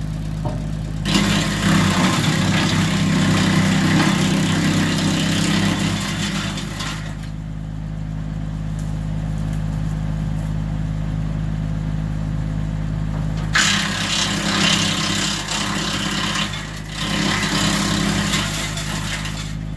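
Tractor-mounted Titan BX42 PTO-driven wood chipper running, with a steady engine drone underneath. Two long spells of loud chipping as branches feed through its blades: one starting about a second in and lasting about six seconds, and another starting about halfway through and running nearly to the end.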